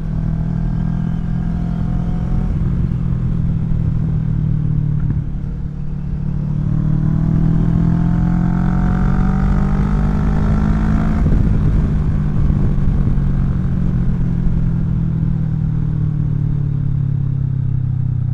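2017 Kawasaki Vulcan 650 S's parallel-twin engine running through a CS Racing aftermarket exhaust at riding speed. About six seconds in the revs drop briefly, then rise in pitch for several seconds as the bike accelerates, then hold steady.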